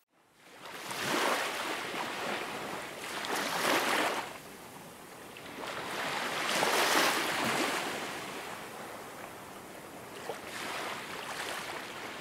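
Ocean surf: a rushing wash of noise that swells and fades every few seconds as waves roll in and draw back.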